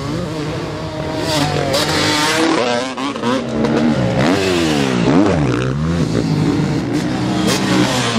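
Motocross dirt bike engines racing at high revs, the pitch falling and climbing again several times as the throttle is closed and reopened, with more than one bike heard at once.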